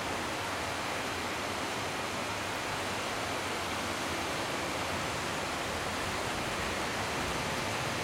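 Steady rush of a fast-flowing mountain river running over its stony bed, an even hiss with no breaks.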